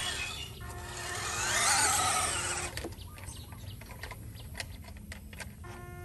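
RC Toyota Land Cruiser scale truck's electric motor and gears whining under throttle as it climbs a sand pile, rising in pitch and growing louder to a peak about two seconds in, then easing off. Scattered small clicks and ticks follow as it crawls over the sand.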